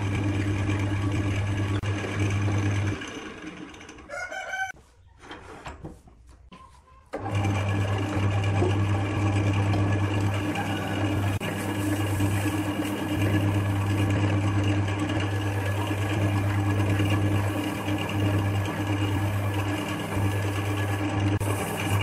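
Wood lathe running with a steady motor hum. The hum drops away about three seconds in, and a brief rooster crow is heard in the lull. The lathe comes back about seven seconds in and runs steadily on.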